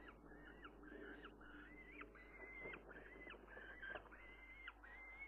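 A juvenile falcon calling over and over, about two faint calls a second, each a short note that rises sharply and then holds level.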